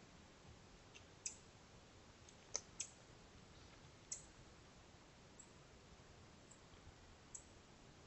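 Near silence: the steady hiss of a trail camera's microphone, broken by a handful of sharp, isolated clicks, most of them in the first half.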